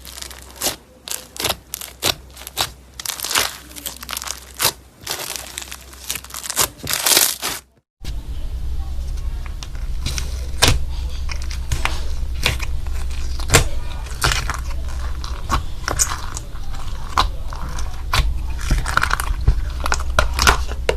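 Slime being squeezed and poked by hand: crunchy, crinkly crackles for the first eight seconds or so, then, after a cut to another clip, sharper sticky clicks and pops over a steady low hum.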